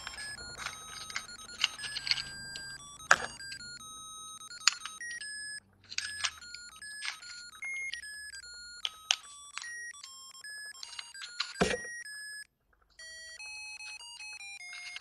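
A musical Christmas-light controller's piezo disc buzzer playing a beeping electronic tune note by note, with sharp clicks as fingers press on the disc. The tune cuts out briefly twice, the second time for about half a second near the end.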